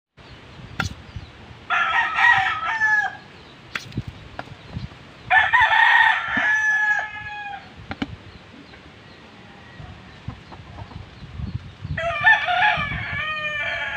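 A rooster crowing three times, each crow about a second and a half long and falling in pitch at the end. A few light knocks of handling come between the crows.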